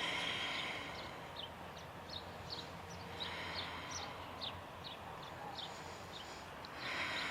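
Faint birdsong: a small bird repeating short, high, downward-sliding chirps about twice a second.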